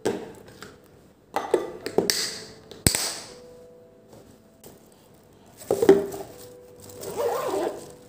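Glass food-storage containers with plastic snap-lock lids being handled, closed and stacked on a cloth-covered counter: a few separate clicks and knocks of glass and plastic, with a sharp snap about three seconds in and another knock about six seconds in, then a rustle near the end.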